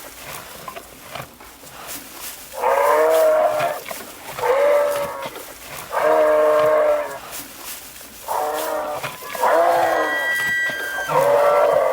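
Cattle mooing: six short, fairly high-pitched moos in a row, each about a second long, after a few seconds of faint background.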